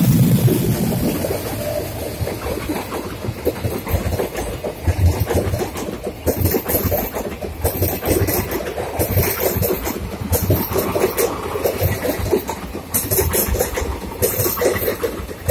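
Passenger coaches of an express train rolling past at speed, their wheels clattering over the rail joints in a steady rattle. The ALCo diesel locomotive's engine is heard fading away in about the first second.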